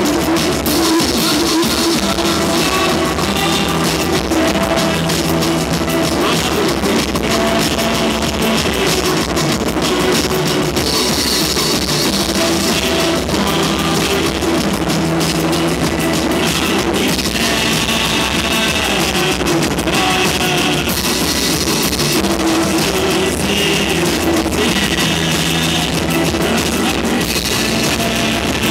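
Live rock band playing loudly: drum kit and electric guitar.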